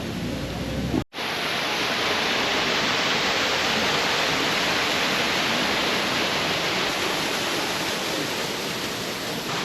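Rushing water: a steady, even roar of flowing water that starts abruptly at a cut about a second in.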